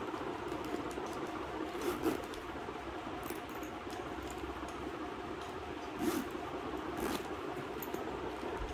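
Brief rustles and small metallic clicks from a Michael Kors backpack's zippers and metal pulls being handled, a few times over a steady background hiss.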